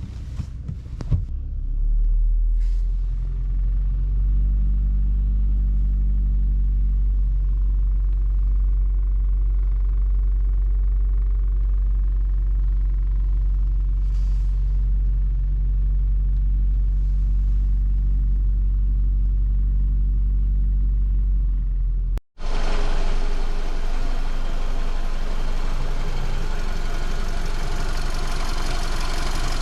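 VW Golf Mk5 engine running, heard from inside the car: a few clicks, then a steady low hum. After a cut about two-thirds of the way through, the sound turns harsher and brighter. This is the rattle from behind the right side of the dashboard that shows up at about 1500 rpm and began after a fuel filter change.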